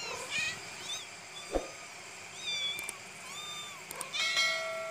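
Kittens mewing in a run of short, high-pitched calls, with a longer, steadier cat call near the end. A single brief thump about a second and a half in.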